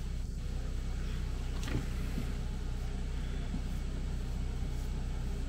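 Steady low motor hum with a faint even hiss, and one faint short tap about 1.7 s in.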